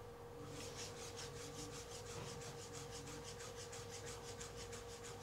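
Chef's knife finely slicing rolled mint leaves on a cutting board: faint, quick, even strokes, about five a second, starting about half a second in.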